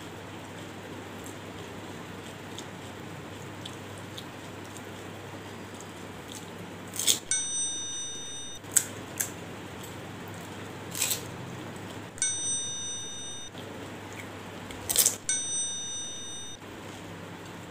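A bell-like chime sound effect rings three times, about 7, 12 and 15 seconds in, each a sharp strike followed by a bright ringing tone that lasts about a second and a half. A few sharp clicks fall between the chimes, over a steady low hum.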